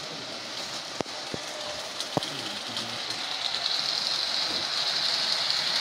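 O-gauge model train running on three-rail track: a steady hiss of wheels on rail that grows louder from about halfway through as the train comes closer, with a few sharp clicks about one and two seconds in.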